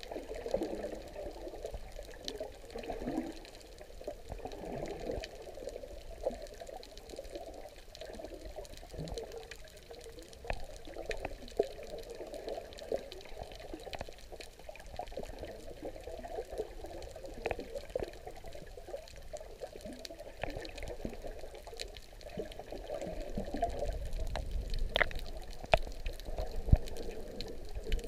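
Muffled underwater water noise picked up by a submerged camera: a steady gurgling churn with scattered sharp clicks, swelling into a louder low rush near the end.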